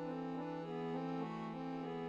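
Accordion-type free-reed bellows instrument playing a slow tune of held notes over one steady low note.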